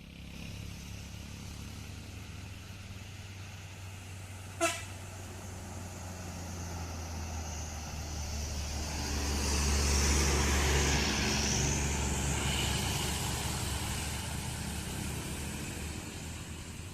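A heavy road vehicle climbing a hill, its engine running with a low steady hum. It grows louder to a peak about ten seconds in as it passes, then fades. A single very short, sharp horn toot sounds about four and a half seconds in.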